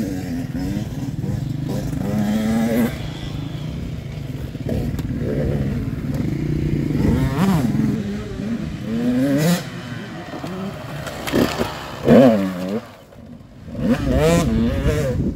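Off-road motorcycle engines revving, the pitch sweeping up and down again and again as the throttle opens and closes, with a brief lull about thirteen seconds in.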